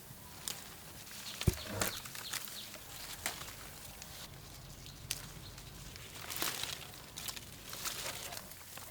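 Scattered rustling and light clicks, with one sharp click about a second and a half in.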